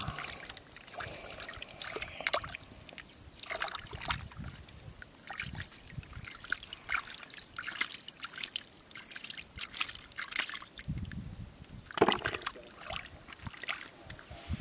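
Hands digging and scooping through wet mud and shallow muddy water: irregular squelches, splashes and trickles, with one louder wet slap near the end.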